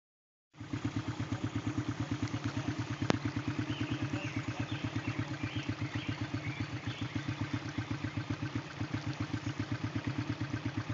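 ATV engine idling with a steady, rapid putter, and a single sharp click about three seconds in.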